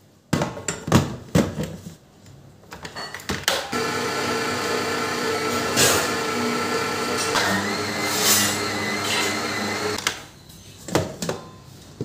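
AGARO stand mixer: the steel bowl knocks and clicks into place on the base, then the motor runs steadily for about six seconds with the dough hook kneading flour and water, its tone changing partway through, before it stops and a few knocks follow as the head is handled.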